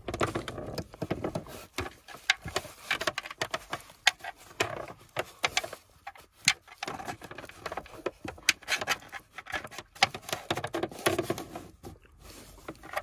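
Rustling, scraping and quick irregular clicks of a gloved hand fumbling against the plastic glove box and dash trim while hooking up the glove box's retaining string.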